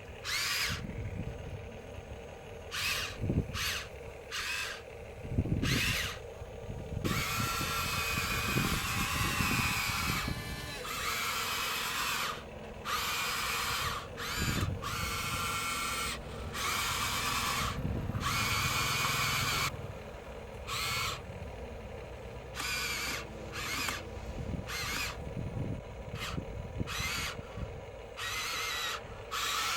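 Electric motors of a Huina radio-controlled construction model whining in repeated on-off bursts as its controls are worked, with a longer unbroken run about seven seconds in.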